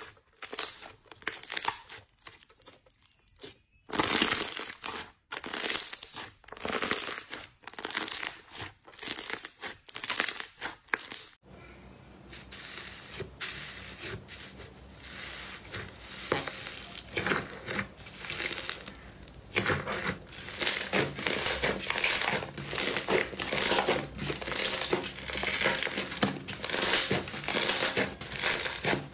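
Slime being pressed and squeezed by hand, giving off crackling, crinkling pops. About a third of the way in the sound switches from separate pops to denser, continuous crinkling.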